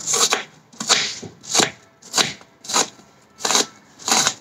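A kitchen knife slicing a white onion onto a plastic cutting board: seven short crunchy cuts at a steady pace, about one every two-thirds of a second.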